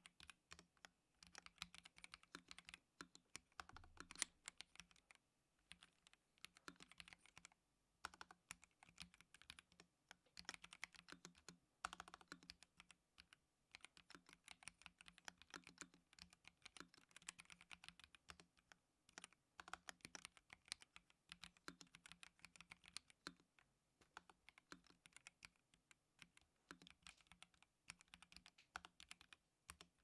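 Fast typing on an Asus ROG Azoth mechanical keyboard fitted with factory-lubed ROG NX Red linear switches: dense runs of keystrokes broken by a few short pauses.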